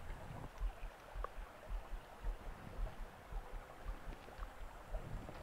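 Small stream trickling over a shallow gravel riffle, faint, with irregular low thumps underneath.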